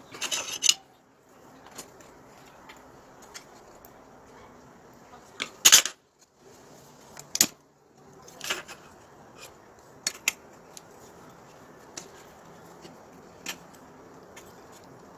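Small metal parts and tools being handled: scattered clinks and taps at irregular intervals, the loudest about half a second and about six seconds in.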